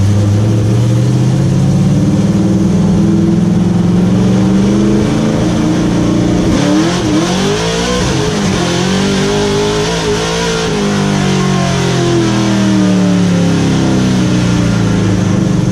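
Race truck's engine heard from inside the stripped cabin under way, the revs climbing steadily, dipping briefly about six seconds in, climbing again and then winding down over the last few seconds.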